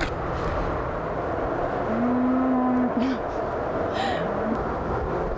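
Holstein mother cow mooing once, a long low call about two seconds in that bends in pitch as it ends, while her calf is being handled. A steady low hum runs underneath.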